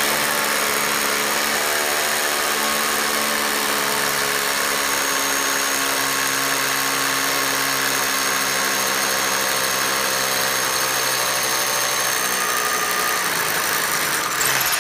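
Makita DHR242 18V cordless rotary hammer with its dust-extraction attachment, drilling into a tiled floor: a steady, loud hammering buzz, easing briefly near the end and then carrying on.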